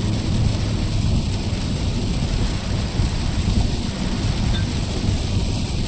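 Steady low rumble with a rain hiss over it: a car driving in the rain.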